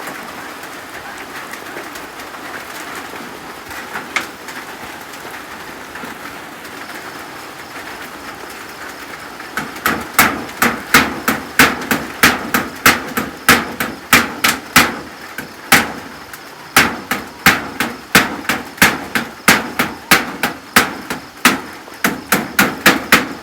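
Steady heavy rain, then from about ten seconds in a hammer driving nails in quick runs of about two to three blows a second, with short pauses, fixing roof sheets on a hut.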